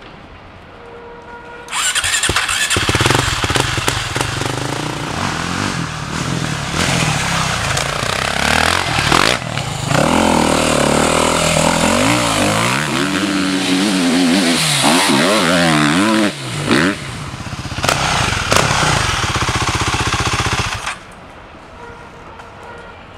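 Husqvarna four-stroke enduro motorcycle engine running and revving up and down as the bike is ridden, cutting in suddenly about two seconds in and stopping near the end.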